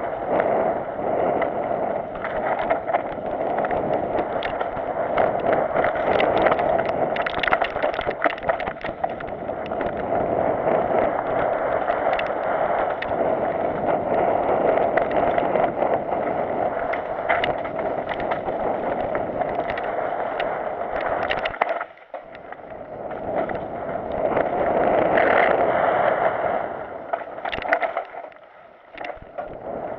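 Mountain bike descending a dirt and rock singletrack, heard from a camera on the rider: a steady rush of tyres and wind with frequent rattles and knocks from the bike over stones and roots. Twice the noise drops away briefly, about two-thirds through and near the end.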